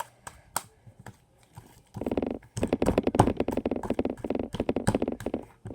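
Glitter-glue slime being kneaded and squeezed by hand, making rapid wet clicks and squelches. A few faint clicks at first, then a dense, loud crackling run from about two seconds in.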